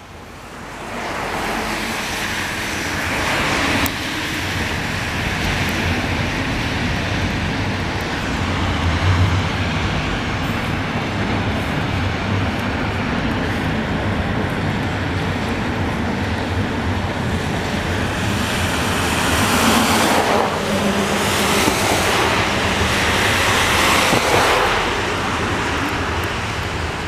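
Canadian Pacific double-stack intermodal freight train rolling steadily across the bridge, a continuous rumble and clatter of wheels on rails, mixed with cars passing along the street below, which swell louder a couple of times near the end.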